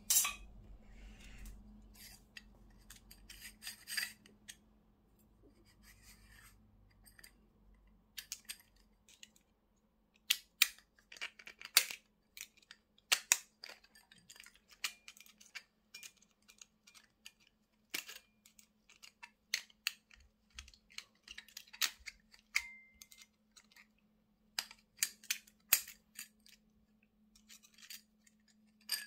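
Steel parts of a Shimano Alfine 11-speed internal gear hub clicking and scraping as they are handled and a small screwdriver pries at a retaining ring in the ring gear housing: irregular sharp metallic ticks and clicks, with a steady low hum underneath.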